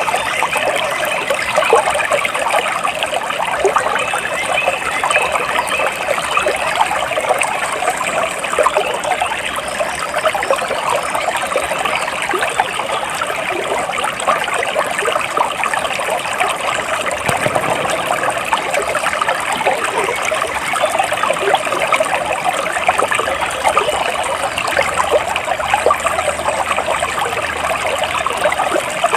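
Small stream of running water trickling and babbling steadily, with a dense patter of small splashes.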